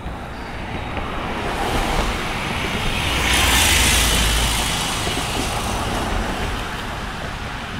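A road vehicle passing by: a broad rushing noise that swells to a peak about three and a half seconds in, then slowly fades.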